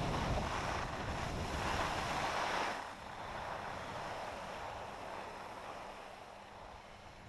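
Skis hissing over slushy snow with wind buffeting the microphone, a steady rushing noise that drops sharply about three seconds in and then fades.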